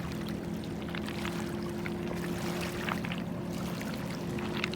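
Steady low engine hum holding a few fixed pitches, with a few faint clicks over it.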